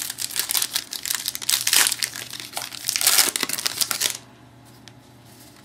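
A trading-card pack wrapper being handled and torn open, crinkling for about four seconds before it stops suddenly.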